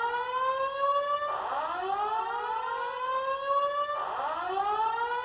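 Siren sound effect over a spoiler-alert title card: a wailing tone that rises in pitch and levels off, then drops back low and rises again, repeating about every two and a half seconds.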